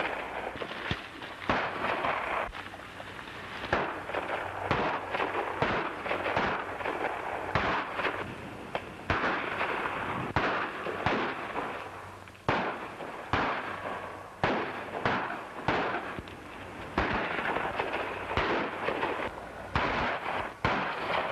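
Gunshots in a Western film gunfight: sharp shots fired in quick, irregular succession, about one or two a second, over the constant hiss of an old optical soundtrack.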